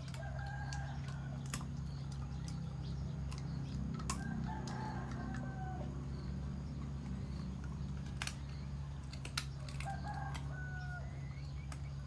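Chickens calling three times, short pitched clucks and crowing calls, over a steady low hum. A few sharp clicks come from a dog eating out of a metal bowl.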